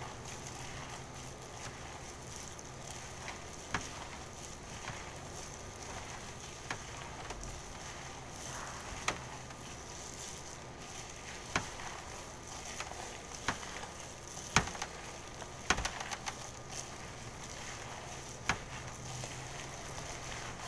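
Hands squishing and kneading a raw ground-meat and breadcrumb mixture in a stainless steel bowl, with a few sharp clicks scattered irregularly through it over a steady background hiss.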